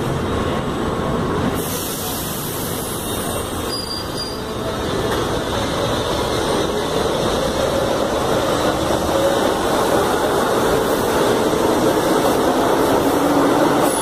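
São Paulo Metro Line 1 train running on the rails: a steady rumble of steel wheels on track that slowly grows louder, with a faint whine sliding down in pitch near the end.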